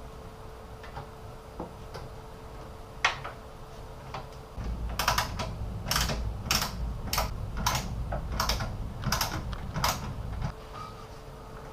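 A run of about nine sharp clicks and knocks, roughly one every two-thirds of a second, from hard PC parts being handled and fitted together during assembly, over a low rumble of handling noise.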